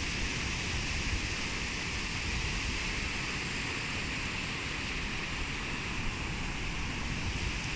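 Steady wash of small waves breaking on a sandy beach, with wind rumbling on the microphone.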